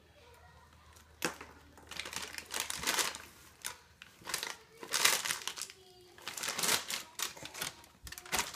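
A clear plastic bag of small crackers crinkling and rustling in a toddler's hands, in irregular bursts that start about a second in.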